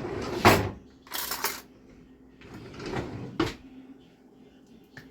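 Handling noises on a kitchen counter: a few clunks and rustles over the first three and a half seconds, the loudest about half a second in and a sharp knock near the end of them.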